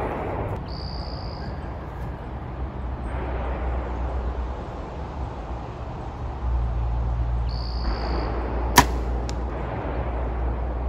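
A compound bow shot: one sharp snap of the string as the arrow is loosed near the end, then a fainter knock about half a second later as the arrow strikes the target.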